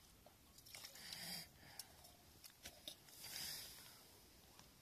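Faint rustling of clothing and tent fabric as a person shifts position inside a small tent, with a few small clicks. Two soft swells of rustle come about a second in and again around three and a half seconds in.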